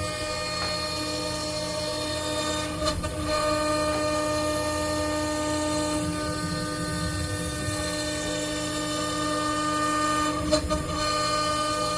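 DIY CNC router running with a steady pitched whine over a low rumble, broken twice by brief disturbances, about three seconds in and again near the end.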